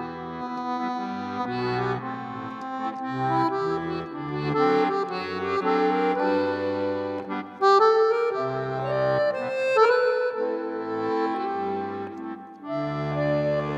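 Background instrumental music: a melody over changing bass notes.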